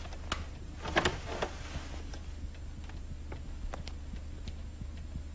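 A few light knocks and clicks at uneven intervals, the loudest cluster about a second in, over a steady low hum.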